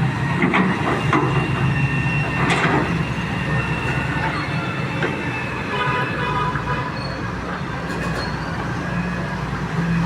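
Heavy excavator's diesel engine running steadily, with high metallic squealing and a few sharp clanks from the working machine.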